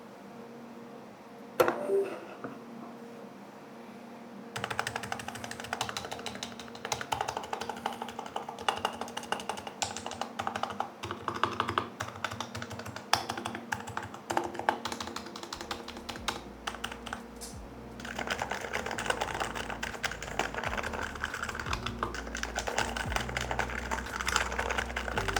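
Typing on an HHKB Pro Classic's Topre electrostatic capacitive keys in a firm top-mount H2H aftermarket housing: a single knock about two seconds in, then steady fast keystrokes from about four seconds on.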